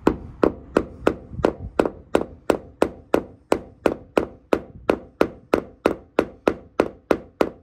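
Hammer tapping the small nail of a plastic cable clip into thin stucco: about twenty even taps at roughly three a second, stopping just before the end.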